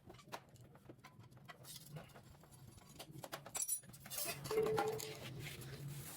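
Light metallic clicks and clinks of hand tools working the nuts on a monoblock water pump's head. A steady low hum joins about four and a half seconds in.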